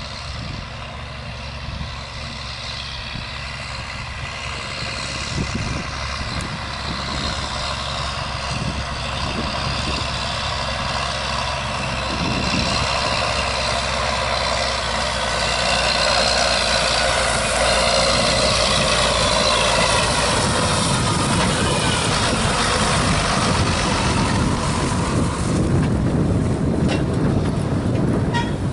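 John Deere T670i combine harvester running on the move, its engine and drive whine with a pitch that wavers. It grows steadily louder over the first half, then holds steady.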